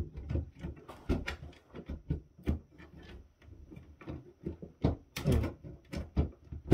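Plastic clicks, knocks and scraping as a battery backup's circuit board and plastic chassis are handled and pushed back into place with rubber-gloved hands. The knocks come irregularly, and the loudest is near the end.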